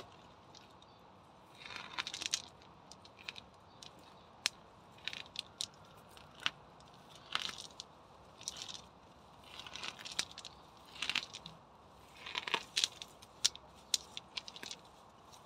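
Weeds being pulled up by hand: roots tearing out of the soil with crackling and rustling of leaves and stems, in short irregular bursts every second or so, with scattered sharp clicks between them.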